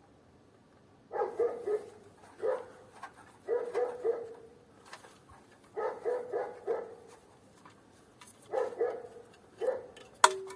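A dog barking in short bursts of two or three barks every second or two, with a sharp click near the end.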